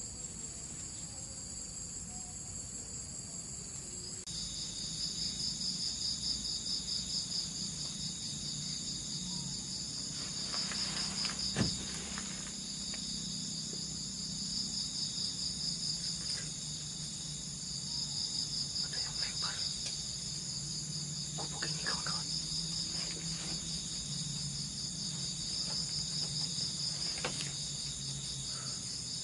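A steady chorus of insects trilling in fast pulses, joined by a denser, louder layer about four seconds in. A few short soft knocks or rustles are scattered through it.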